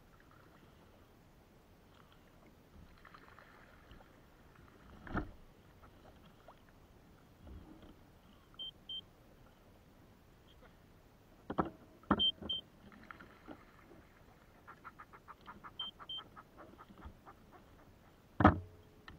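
Scattered knocks and clunks of handling aboard a plastic kayak while a cod is reeled up and lifted in, with a quick run of clicks about fifteen seconds in and a loud thump near the end.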